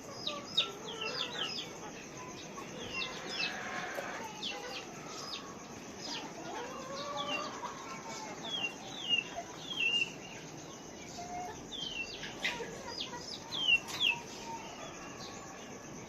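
A flock of chickens on a poultry farm calling together: many short, high, falling peeps over a busy background of lower clucking.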